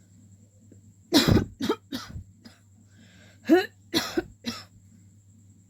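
A woman coughing on purpose in two bouts of about four coughs each, the first about a second in and the second about three and a half seconds in, some coughs carrying a little voice.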